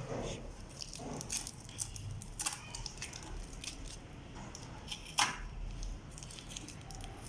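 Scattered clicks and crinkling from a microwave oven's power cord and its plastic wrapping being handled, with a sharper click about five seconds in.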